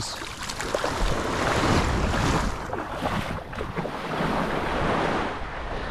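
Shore surf washing in over the sand in the shallows, with wind buffeting the microphone.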